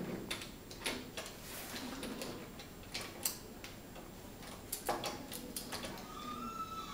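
Wooden toy train cars and track pieces clicking and knocking together as they are pushed and handled: irregular light taps and clacks.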